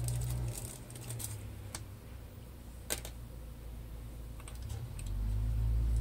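Small metal model parts and a plastic parts bag being handled: light clicks and rustles, with one sharper click about three seconds in. A low steady hum comes up near the end.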